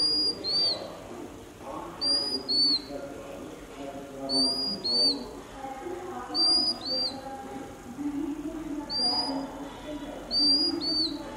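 Oriental magpie-robin calling: a clear whistled note followed by a short slurred one, repeated six times at roughly two-second intervals.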